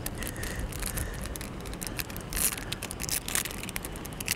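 A plastic blister pack being opened and handled to take out a small metal spoon lure: a run of small, irregular crackles and clicks.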